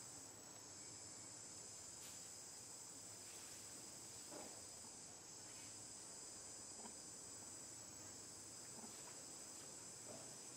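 Faint insect chorus: a steady, high-pitched shrill drone of many insects calling together.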